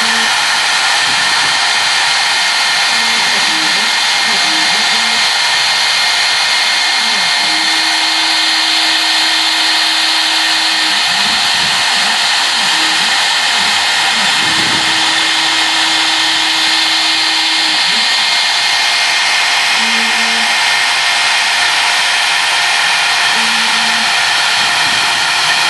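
CNC router spindle running steadily at high speed, its engraving bit milling isolation traces into a copper-clad circuit board, with a constant high whine over the cutting noise. Lower motor tones shift in pitch as the head moves, holding steady for a few seconds twice, about a third and two-thirds of the way through.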